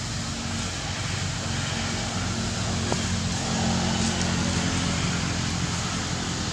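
A steady, low, engine-like hum with an even hiss over it.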